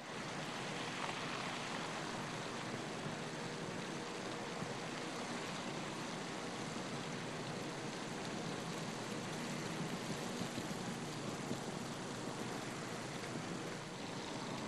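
Steady outdoor hiss of a snowstorm, even throughout, with no distinct events standing out.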